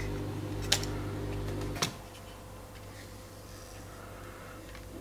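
Two sharp clicks from the plastic back latch and film door of a Canon EOS 630 film camera being opened, the first a little under a second in and the second near two seconds in. A steady low hum underneath cuts off at the second click.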